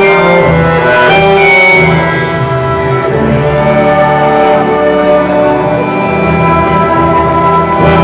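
Live folk orchestra playing a southern Serbian dance tune, accordions and violins carrying the melody over double bass. The music eases to a slightly softer level about two seconds in.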